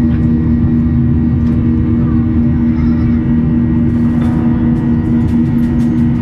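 Steady, loud drone of an airliner cabin in flight, the jet engines' hum holding one low tone. From about four seconds in, light regular ticks join it.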